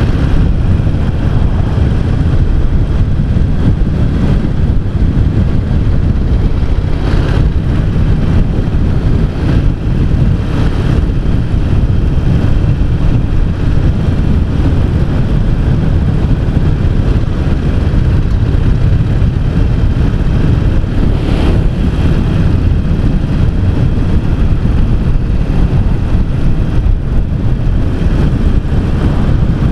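Harley-Davidson Sportster 883 Custom's air-cooled 883 cc V-twin running steadily as the motorcycle cruises at road speed, with a few brief louder moments along the way.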